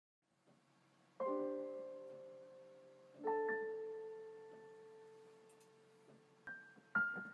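Soft, slow piano music: two chords struck about two seconds apart, each left to ring and fade, then two higher single notes near the end.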